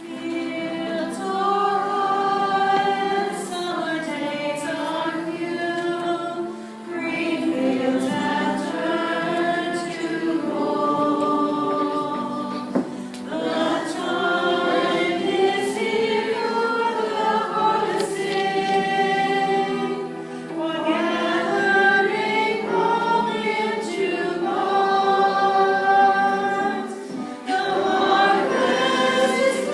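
Church choir singing the closing hymn of a Mass, held notes moving from phrase to phrase with short dips between lines.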